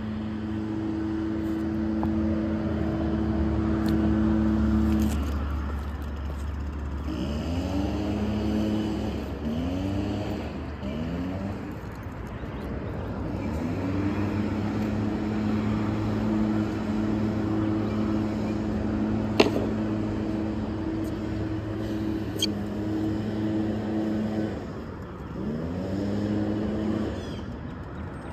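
Motor vehicle engines running nearby, a steady engine tone that sweeps up in pitch several times in short rises, as cars pull away and pick up speed. Two sharp clicks stand out about two-thirds of the way through.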